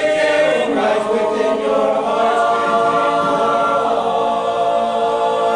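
Male a cappella group singing the song's final chord in close harmony, held steady for several seconds before cutting off near the end.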